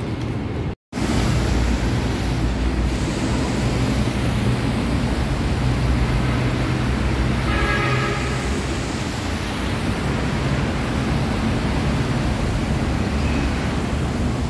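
Steady rumble and hiss of city street traffic mixed with the rush of a large fountain's spray, with a short pitched horn-like tone about eight seconds in. The sound drops out for an instant just before a second in.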